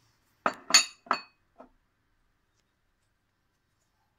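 Glass clinking: three quick clinks with a short high ring, about half a second to a second in, followed by a faint tap.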